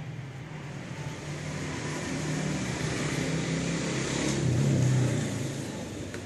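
A motor vehicle's engine hum, low and steady, swelling to its loudest about five seconds in and then fading, as of a vehicle passing by.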